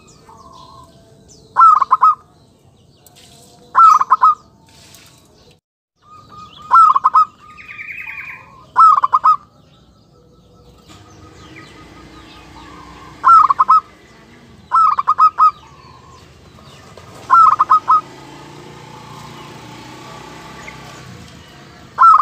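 Caged zebra dove (perkutut) cooing: about eight short, clear calls, each a quick run of two or three notes, repeated every two to four seconds.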